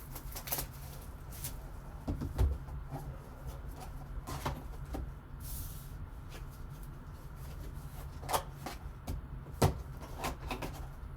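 Trading card packaging handled by hand: scattered clicks and taps, with a short crinkle about five and a half seconds in, over a low steady hum.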